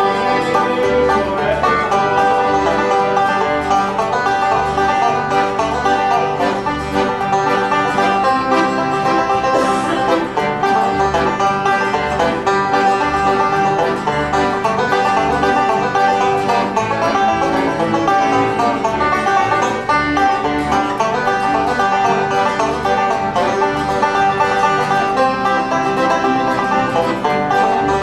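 Bluegrass band playing at an even pace: banjo picking over guitar, with a bass keeping a steady beat.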